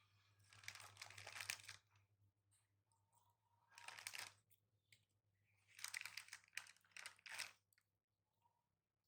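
Faint crinkling and tearing of a plastic jelly pack being peeled open, in three short bursts: about a second in, around four seconds, and again from about six to seven seconds.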